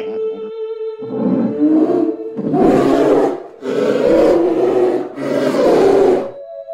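Polar bear roaring: four harsh, breathy roars of about a second each, one after another.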